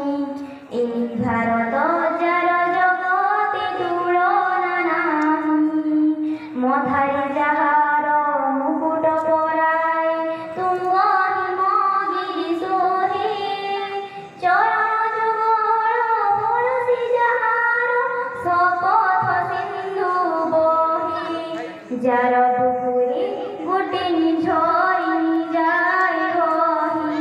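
A young girl singing a song solo into a handheld microphone, in long held melodic phrases with short breaths between them.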